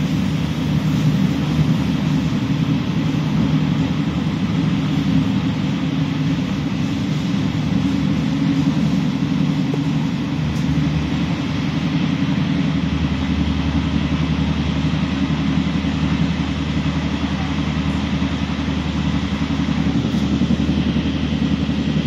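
Steady running noise heard from inside a passenger train travelling at speed: an even rumble and rush of the train on the track. A low steady hum joins in about thirteen seconds in.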